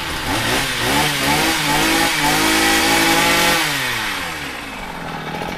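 Brush cutter's small petrol engine revved from idle so the gear head spins. It rises over about two seconds, holds at high speed for about a second, then drops back to idle.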